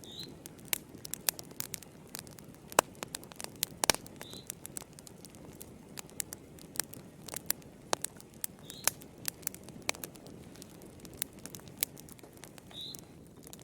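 Wood fire burning in a fireplace: irregular sharp crackles and pops of burning logs over a low, steady rumble of flame. The two loudest pops come about three and four seconds in.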